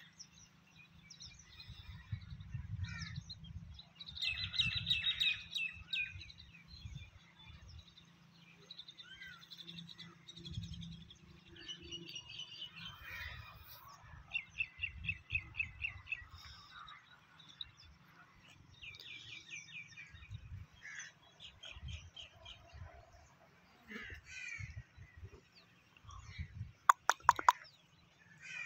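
Birds calling and chirping on and off, several in quick series of short repeated notes, over a low rumble. About 27 seconds in, a few sharp clicks are the loudest sounds.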